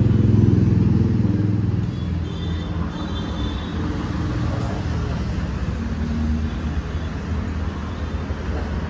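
Road traffic running past, a steady low rumble that swells as a vehicle passes close in the first couple of seconds, then settles into a continuous traffic hum.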